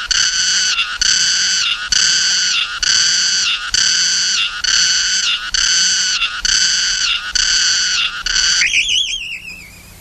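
Cicada song as an animated film's sound effect: a loud, shrill call repeated about three times every two seconds, each ending in a short downward slide. Near the end it breaks into a wavering, falling trill that fades out.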